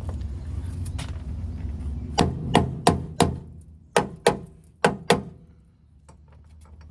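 A run of about eight sharp knocks, hard hits coming in quick pairs and threes from about two seconds in to about five seconds in, over a steady low background rumble.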